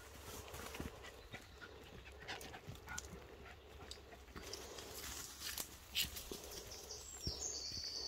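A Jack Russell terrier panting as it runs about, with footsteps and scattered scuffs and clicks on a wet, muddy path. The loudest knock comes about six seconds in.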